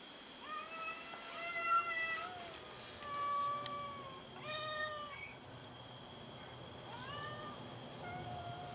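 A stray grey tabby kitten meowing about five times for food, drawn-out meows that rise and fall in pitch, the longest and loudest near the start.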